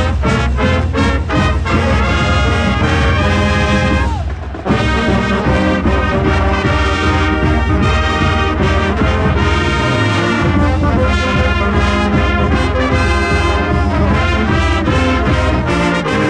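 Marching band playing loud, brass-led music: short punched notes for the first few seconds, then longer held chords, with a brief gap about four seconds in.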